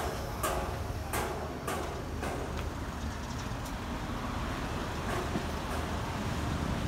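Street traffic hum, with the walker's own footsteps on wet pavement at an even walking pace, a step a little more than every half second, for the first couple of seconds.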